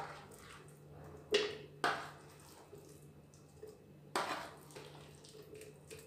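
Spoon and plate knocking against a blender jar as bael fruit pulp is scraped in: four sharp knocks, the first right at the start and the last about two-thirds of the way through.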